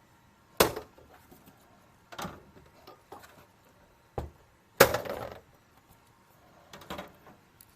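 Hard objects being handled and set down on a work surface: about six separate sharp knocks and clatters, the loudest about half a second in and near the five-second mark.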